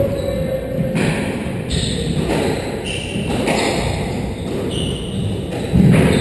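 Squash rally: a sharp crack of the ball off rackets and walls about once a second, with short high squeaks of shoes on the wooden court floor. A louder, heavier thump comes near the end.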